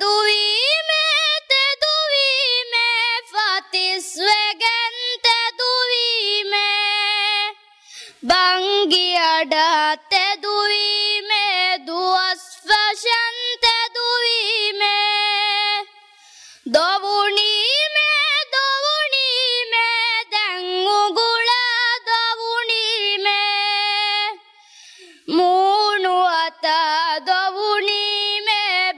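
A boy chanting Dhivehi bandhi verse unaccompanied into a microphone, in long melodic phrases that each end on a held note, with short breaks for breath between them.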